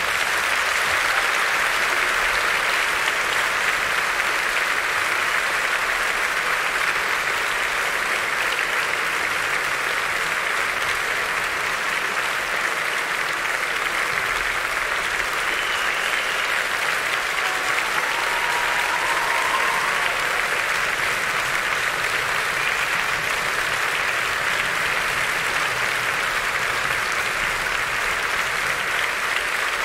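Theatre audience applauding steadily as the ballet's music ends.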